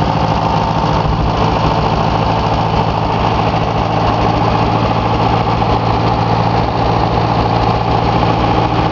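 Case 311-B tractor engine idling steadily, with a fast, even run of firing pulses under a constant hum.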